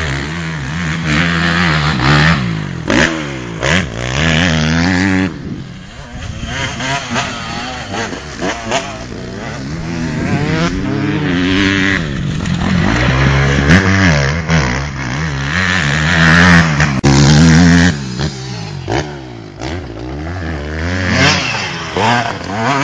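Honda 250cc four-stroke motocross bike engine revving hard and easing off over and over as it is ridden around a dirt track, its pitch rising and falling repeatedly. It eases off and quietens about six seconds in and again near the end.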